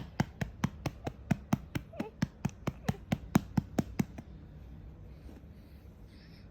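A hand patting a young baby's back to bring up a burp: quick, even pats, about four or five a second, that stop about four seconds in.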